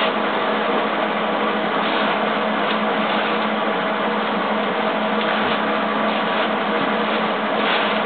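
Steady machine noise with a low hum, unchanged throughout, with a few faint knocks.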